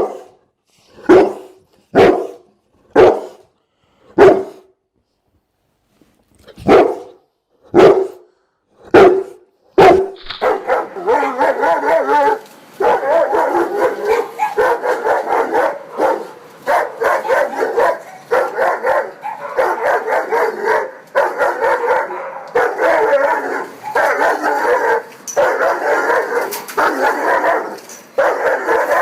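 Dog barking: single deep barks about a second apart, with a short pause partway, then from about ten seconds in, fast continuous barking.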